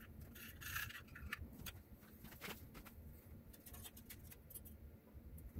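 Faint scattered rustles and light clicks of gloved hands fitting a front-cover gasket onto the timing-chain end of an engine block.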